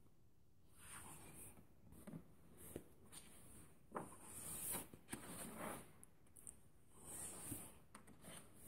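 Colouring-book pages being turned by hand: a run of soft paper swishes and rustles with light flicks, the loudest about four to five seconds in.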